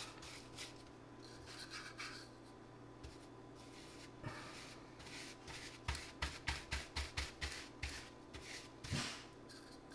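Bristles of a small paintbrush stroking oil-based polyurethane onto bare particle board, a soft brushing rub. Scattered strokes at first, then a quick run of about four strokes a second for two seconds in the second half.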